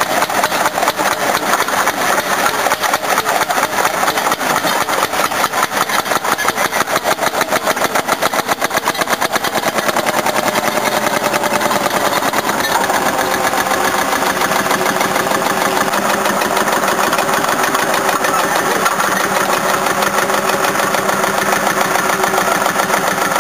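Vintage crawler tractor's engine running with a fast, even pulsing beat as the tractor drives over grass.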